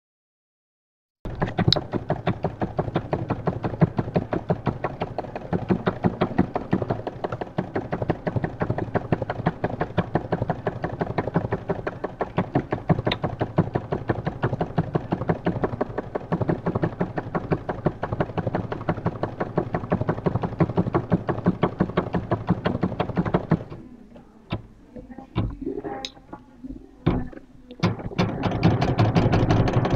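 Sewing machine running: a rapid, even clatter of needle strokes. About three-quarters of the way through it stops, leaving a few separate knocks, then starts again louder near the end.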